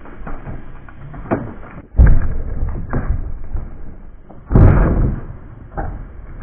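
Wooden boards and wall pieces knocking and thudding as they are handled during demolition, with two heavy thuds, one about two seconds in and one a little after four and a half seconds, amid lighter knocks.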